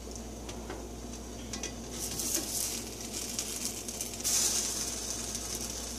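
Cheese sandwich sizzling as it fries in a stainless steel pan, with a spatula sliding under it. The sizzle swells about two seconds in and again just after four seconds.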